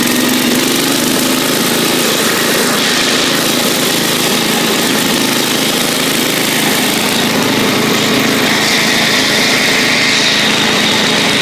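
Bolens garden tractor engine running steadily while the tractor is driven along.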